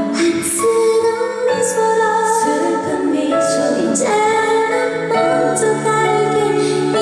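A woman singing a slow ballad in long held notes over musical accompaniment.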